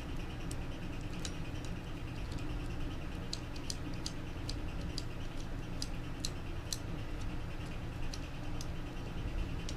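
Small metal hardware being handled and fitted: irregular light metallic clicks and ticks as nuts, washers and screws are set onto a printer's filament-rack rod, over a steady low hum.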